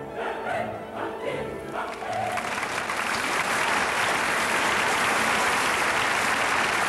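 Operatic singing that gives way about two seconds in to a theatre audience applauding. The applause swells, then holds steady.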